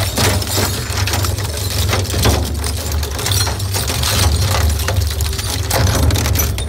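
Industrial shredder running under load, a steady low motor hum under frequent sharp cracks and crunches as it breaks up scrap.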